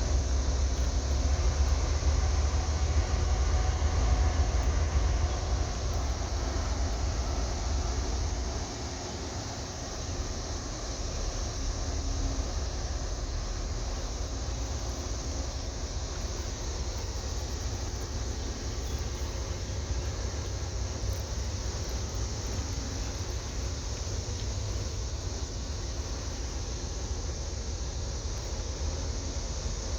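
Low, steady engine rumble from the vessel entering the lock, easing down about nine seconds in and then holding level.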